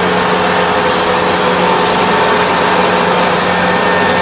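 Kubota ER470 combine harvester running steadily: a constant engine and machinery drone with a steady whine over it.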